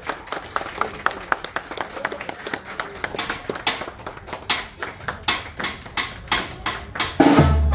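Scattered handclapping, a few claps a second, over a murmur of voices. About seven seconds in, a brass band with drums starts playing loudly.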